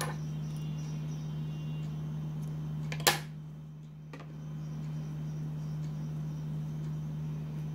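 A steady low hum, with one sharp knock about three seconds in and a fainter click about a second later.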